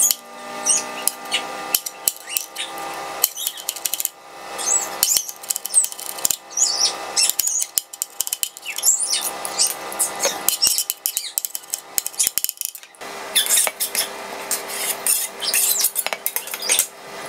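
Chef's knife chopping onion and garlic on a cutting board: many quick, uneven knocks of the blade striking the board.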